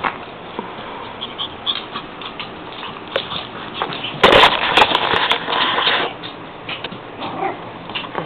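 Wolves and puppies at play: scattered short animal sounds and scuffling, with a loud, dense burst of noise about four seconds in that lasts around two seconds.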